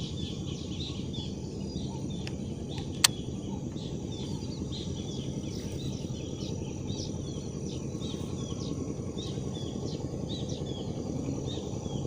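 Small birds chirping again and again in short high calls over steady low outdoor background noise, with a single sharp click about three seconds in.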